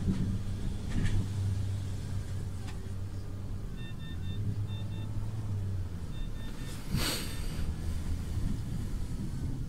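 Ambulance engine rumbling low and steady while creeping at walking pace. A few short electronic beeps come in the middle, and a brief burst of hiss about seven seconds in.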